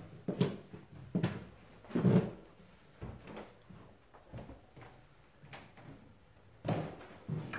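Slow footsteps on a hardwood floor, a dull thud about once a second.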